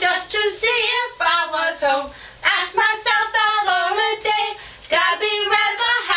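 Two female voices singing a children's action song together, unaccompanied, with a short break about two seconds in.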